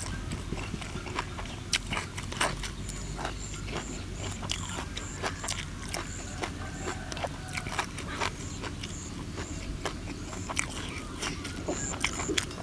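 Chewing and lip smacking with scattered sharp clicks as grilled catfish is picked apart by hand and eaten. Behind it, a steady low hum and faint high chirps repeating about every half second.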